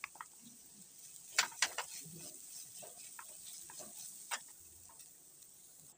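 Spatula stirring and tossing diced carrot, green beans and sweet corn in a frying pan, with a quick run of scrapes against the pan a little over a second in and another near the end, over a faint sizzle of the vegetables sautéing in oil.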